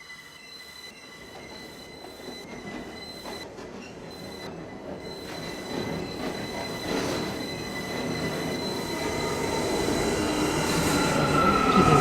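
R179 subway train running through a tunnel, its rumble growing steadily louder, with wheel squeal starting near the end.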